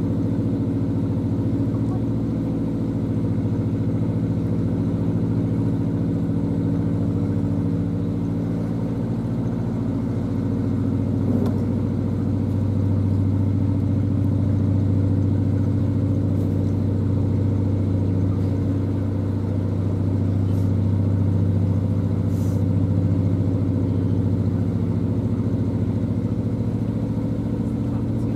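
Narrowboat's diesel engine running steadily at a slow cruising pace, a low even hum that strengthens a little about halfway through.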